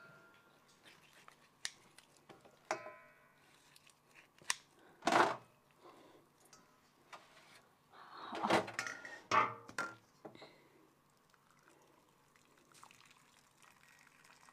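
Kitchen handling sounds while a geoduck is prepared: water dripping and splashing in a stainless steel bowl and dishes knocking, with scattered sharp clicks. There is a brief ringing note near three seconds, one loud rushing noise around five seconds and a longer one from about eight to ten seconds.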